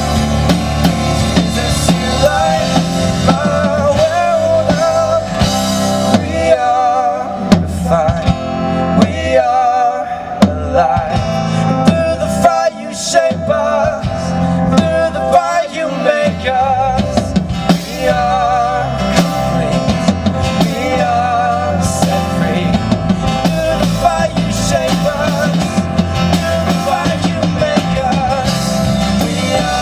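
Rock music with a drum kit and guitar, an instrumental passage carried by a wavering lead melody.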